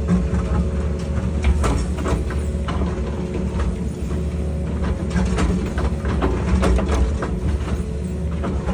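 Excavator engine running steadily, with scattered short knocks and scrapes from the bucket working the ground.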